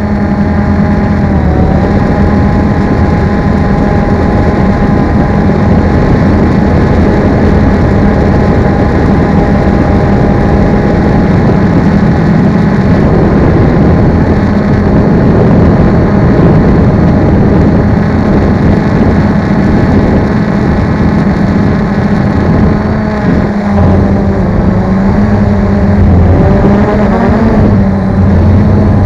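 Drone's electric motors and propellers running steadily, heard loud and close from a camera carried on the drone itself. Their pitch wavers and shifts in the last several seconds as the drone turns.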